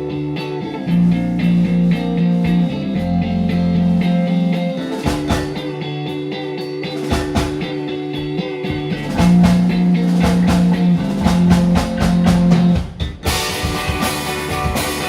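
Rock band playing live: electric guitar and bass holding long notes over a drum kit. The music drops out briefly near the end, then comes back in brighter and fuller.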